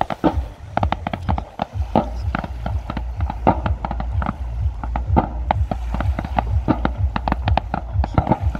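Fireworks going off: a dense, irregular string of bangs and pops, several a second.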